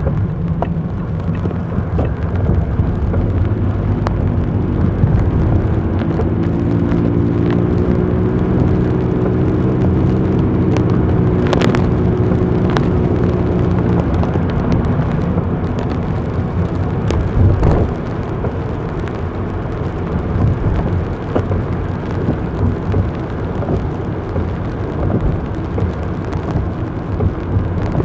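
Car being driven, recorded onboard: steady engine and road rumble. A humming engine note rises gently from about six seconds in and stops at about fourteen seconds, and there is a single sharp click a little before the note stops.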